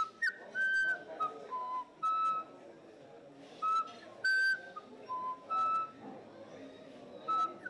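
Wajãpi flute playing short, clear notes on three or four pitches, some sliding up into the note, in brief phrases with pauses between them.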